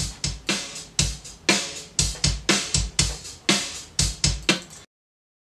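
Sampled drum loop playing unreversed from Reason 8's Dr. Octo Rex loop player: a steady beat of drum hits with a low thump about every half second. It stops abruptly about three-quarters of the way through.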